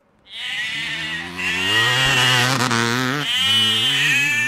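Goat bleating in long, wavering calls that run one into the next.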